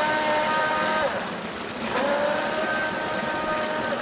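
Atomik Barbwire RC boat's electric motor whining in two throttle bursts on the water: the first cuts off about a second in, the second starts about two seconds in. Under it is the rush of spray and creek water. The boat is running on a 2S nickel-metal hydride pack, which the owner thinks gives it too little power.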